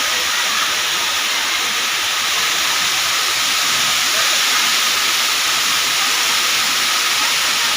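Steady rush of water pouring down a swimming pool's artificial waterfall, loud and unbroken.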